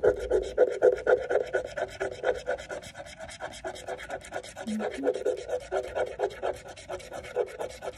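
A coin scratching the coating off an instant scratch lottery ticket, with fast back-and-forth rasping strokes at about eight to ten a second and no break.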